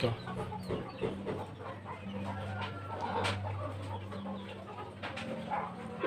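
Chickens clucking in the background over a low steady hum, with a few short clicks.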